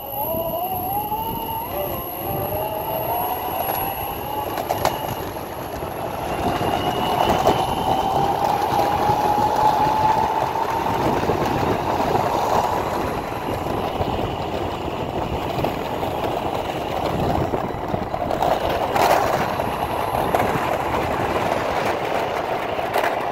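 Two Turnigy SK3 brushless motors whining through their belt drives as the electric Ripstik accelerates. The whine rises in pitch over about the first ten seconds as the board gathers speed, then holds steady. Under it runs the rolling rumble of the caster wheels on asphalt.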